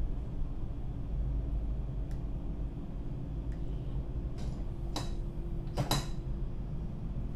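Steady low hum of a tug's engines, with a few light clicks and two sharper clicks about five and six seconds in.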